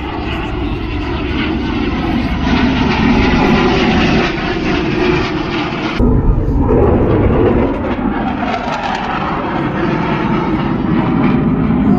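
Loud roar of an aircraft's engines as it flies past, growing louder over the first few seconds. About halfway through it cuts abruptly to another stretch of the same kind of engine roar.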